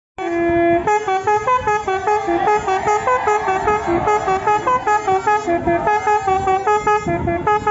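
Tour bus's Basuri 'telolet' multi-tone horn playing a fast tune of short pitched notes, about four a second, after one longer held note at the start.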